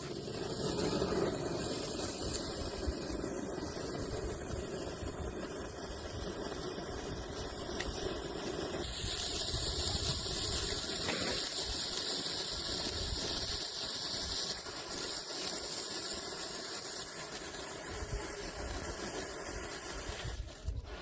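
A Diwali firecracker burning with a continuous fizzing hiss, which gets brighter about nine seconds in and dies away near the end.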